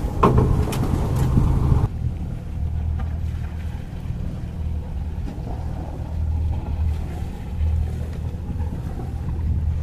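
A sailboat's engine running at low speed, a steady low drone with a slight pulsing. For the first two seconds wind noise on the microphone and a few clicks sit over it, then cut off abruptly.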